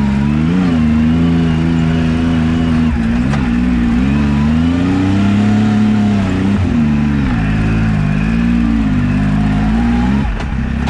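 Turbocharged Yamaha YXZ1000R side-by-side's three-cylinder engine under load, revving up and down again and again with throttle changes, heard from the cockpit, with a brief drop in revs near the end.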